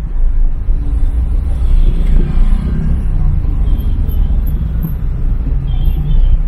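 Steady low rumble of a vehicle driving in slow street traffic.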